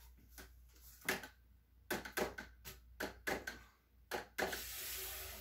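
Acrylic pour painting board being spun on a turntable: a run of irregular clicks and knocks, then a steady rushing whir for about a second near the end that fades away.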